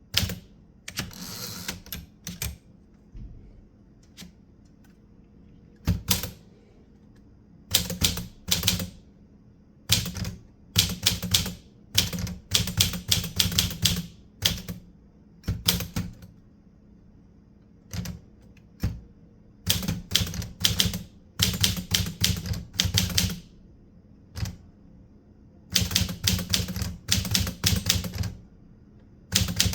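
Typewriter keys being struck in quick bursts of clacks, with short pauses between runs of typing.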